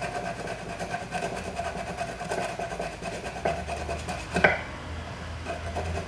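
Sterling silver piece being sanded by hand with a sanding stick: repeated rubbing strokes of abrasive on metal, with a sharp click about four and a half seconds in.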